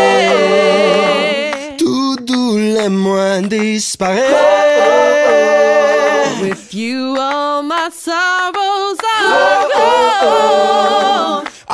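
Recorded song sung by voices with little or no accompaniment: long held notes with vibrato, in phrases broken by short pauses.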